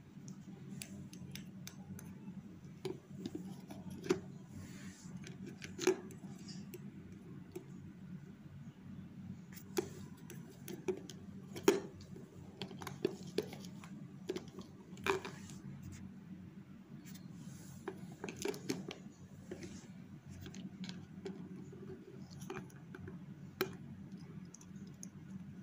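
Scattered light clicks and taps of hard plastic as a small plastic toy and a clear plastic tub are handled and pecked at, over a steady low hum.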